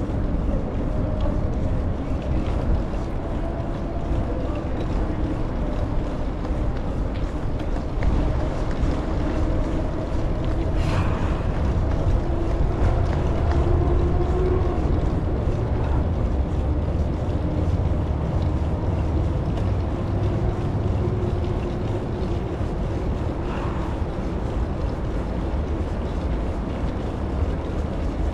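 Steady low rumble of wind on the microphone and bicycle tyres rolling along a trail, with a faint steady hum underneath.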